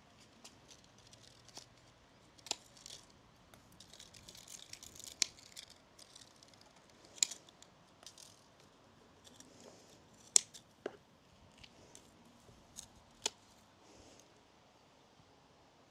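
Fiskars garden secateurs snipping plant stems: several sharp, irregularly spaced snips, with leaves and stems rustling in between.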